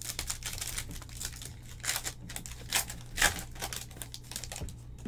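Plastic wrapper of a basketball trading-card pack crinkling and tearing as it is ripped open by hand, in irregular crackles with a few louder ones about two and three seconds in.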